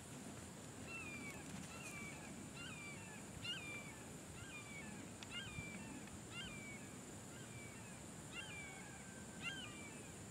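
A bird calling over and over: a quick series of short chirps that slide downward in pitch, beginning about a second in, over a faint steady high whine.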